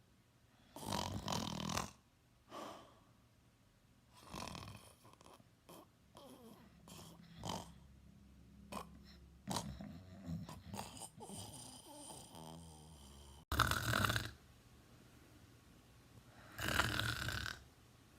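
A teenager snoring in sleep: loud snoring breaths every few seconds at an uneven pace, with quieter short sounds between them in the middle.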